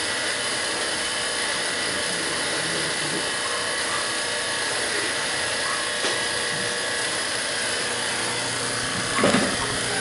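Refrigeration vacuum pump running steadily, evacuating the refrigerator's sealed system to a deep vacuum of around 540 microns.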